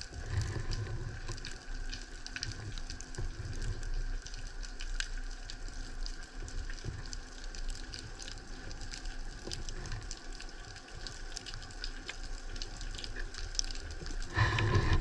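Underwater sound heard through a diving camera: a low rush and rumble of water with a steady crackle of fine clicks, growing louder near the end.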